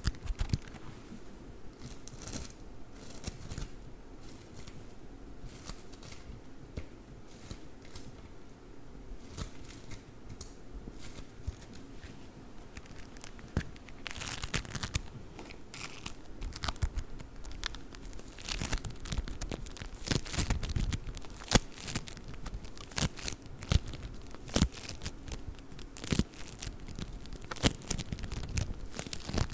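Play foam (beaded modelling foam) squeezed and kneaded by hand close to the microphone: a dense run of small crackles and pops, sparser at first and busier from about halfway on.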